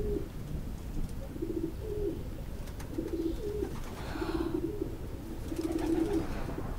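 Pigeons cooing: short, low, warbling coos repeated every second or so.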